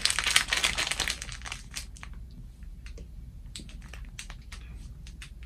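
Plastic packets of bath soap flakes crinkling as they are handled. The crinkling is dense for the first couple of seconds, then thins to scattered small crackles.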